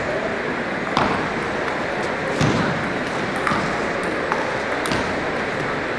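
Table tennis rally: the celluloid ball clicking sharply off the bats and the table, about one tick every half second, over steady hall background noise.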